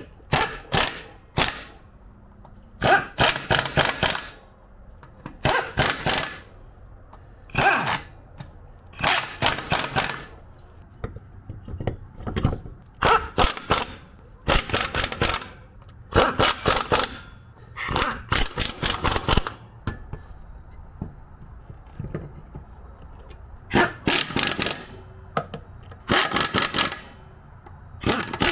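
Pneumatic impact wrench running lug nuts onto an ATV wheel hub: about a dozen short bursts of rapid hammering, each a second or so long, with brief pauses between.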